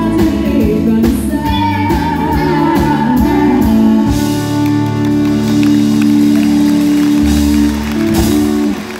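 Live country song by a female singer with a backing band, reaching its end: the band holds a long final chord through the second half, which stops just before the end.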